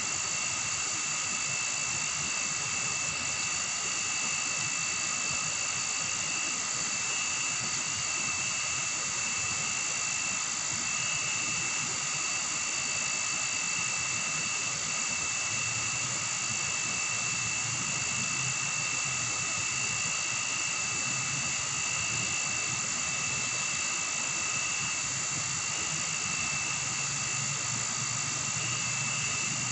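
Steady chorus of night insects in dense forest, several high unbroken trilling tones held at a constant level; a low hum joins about halfway through.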